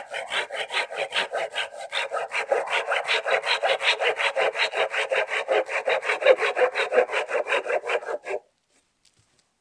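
Silky Bigboy folding saw cutting through a dead, dry wooden pole with fast, even back-and-forth strokes. The strokes stop a little over eight seconds in as the cut goes through.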